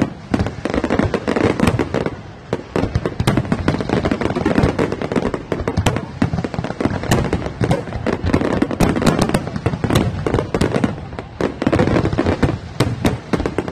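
An aerial fireworks display: high-altitude shells burst in a rapid, continuous barrage of sharp bangs and crackling.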